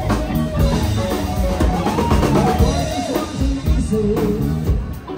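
Live band playing: a drum kit beating steadily with kick and snare under electric guitar, and a singer's voice over it.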